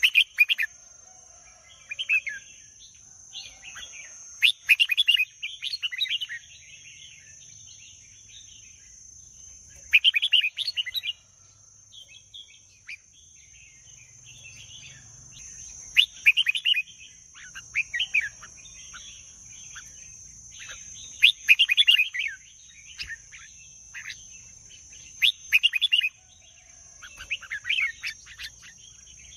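Red-whiskered bulbul singing: short, quick whistled phrases repeated every one to few seconds, with brief pauses between.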